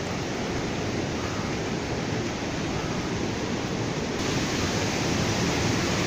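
Steady rush of a rocky mountain stream flowing through a narrow canyon, growing a little louder and brighter about four seconds in.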